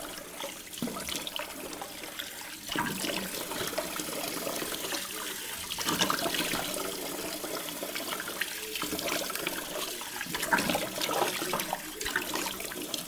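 A bathroom tap running into the sink, with repeated splashes of cold water on the face as it is rinsed after a wet shave. The water stops near the end.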